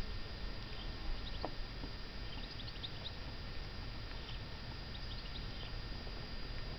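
A tortoise biting and chewing clover leaves, heard as faint soft crunches and clicks. A few short, high bird chirps come in small clusters behind it.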